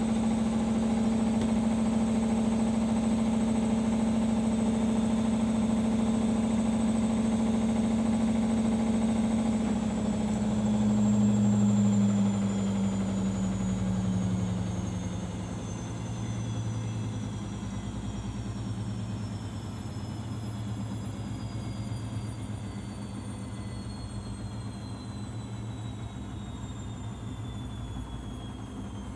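Arçelik 5083 washing machine in its final spin: the drum spins steadily at top speed, then about ten seconds in it begins to slow, its motor whine falling steadily in pitch and the running growing quieter as the spin winds down.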